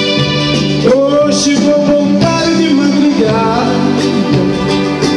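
Live band music: a male singer comes in about a second in over acoustic guitar, keyboard and drums, holding long, sliding notes.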